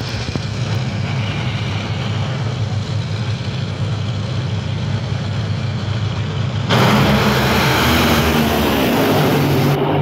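Two supercharged, nitromethane-burning V8 engines of Top Fuel dragsters running at the starting line with a steady heavy rumble. About two-thirds of the way in they launch at full throttle, a sudden, far louder blast that lasts as the cars run down the track.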